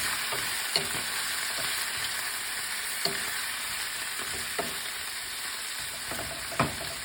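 Chicken wings sizzling in a pan with onion and garlic as they are stirred, a steady frying hiss with a few knocks of the stirring utensil against the pan, the loudest one near the end.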